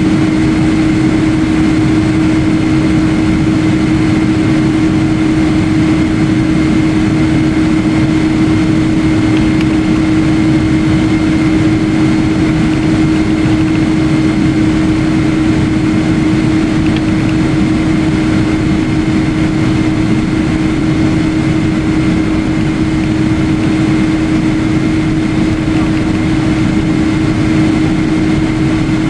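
Steady jet airliner cabin noise heard from inside the cabin: engine drone and rushing air, with a strong low hum and a fainter high whine over it.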